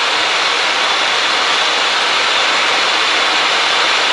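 Steady flight-deck noise of a Boeing 737-800 in flight: an even rushing hiss of air and aircraft running noise, with no change in pitch or level.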